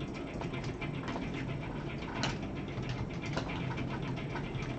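Light, irregular clicking and tapping, many small ticks close together, over a steady low hum.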